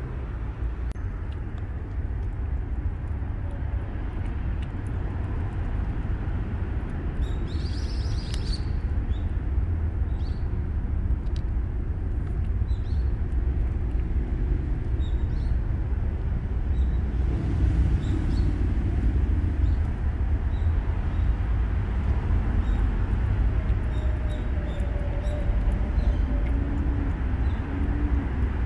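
Steady low outdoor rumble with faint small clicks from a kitten lapping water and chewing kibble and raw meat.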